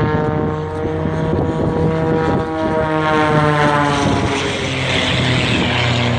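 Propeller aeroplane flying past with its engine running hard. The engine tone's pitch slides slowly down as it passes, and a loud rushing noise builds over the last two seconds.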